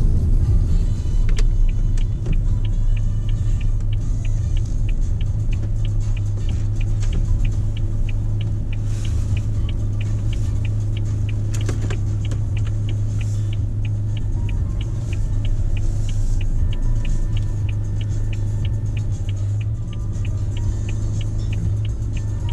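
Car cabin: the car's engine runs with a steady low hum while the turn-signal indicator ticks evenly, about twice a second, from a few seconds in.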